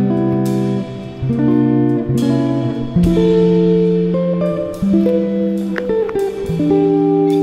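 Instrumental background music: a melody of plucked guitar notes, changing every half second to a second.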